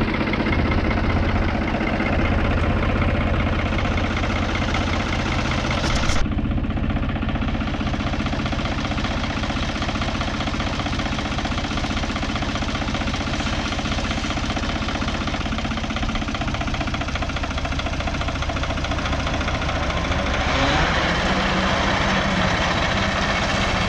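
An engine running steadily at a constant speed, changing abruptly about six seconds in and growing brighter near the end.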